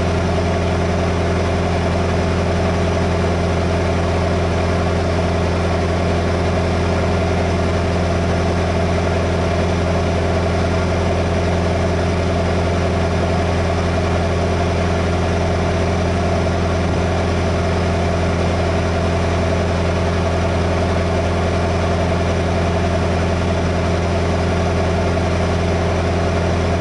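Truck's diesel engine idling with a steady, unchanging low hum.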